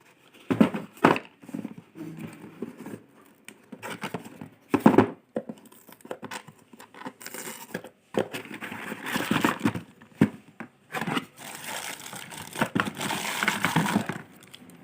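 Paper packing crinkling and rustling in irregular bursts as it is handled and pulled out of a box.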